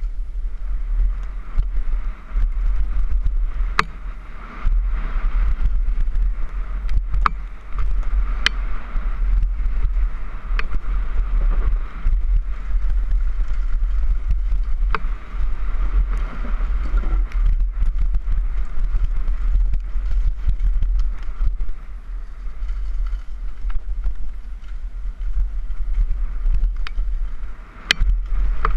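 Wind buffeting a helmet-mounted camera's microphone on a fast downhill mountain-bike descent, over the steady noise of tyres rolling on dirt. Sharp clacks and rattles come here and there as the bike goes over bumps.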